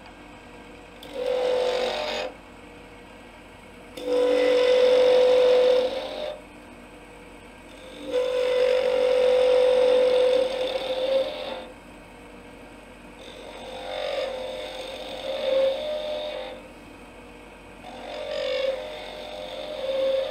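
Skew chisel cutting spinning wood on a lathe: five separate cuts, each lasting one to three seconds with a steady singing tone, and the lathe running quietly between cuts.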